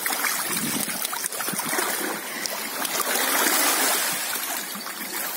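Shallow sea water lapping and trickling over pebbles at the shoreline: a steady rushing hiss with many small splashes.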